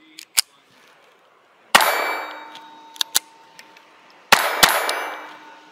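Sharp cracks from a .22 LR pistol, one about a second and a half in and two close together past the four-second mark, each time followed by a steel target ringing and fading over a couple of seconds. Light metallic clicks fall between the shots.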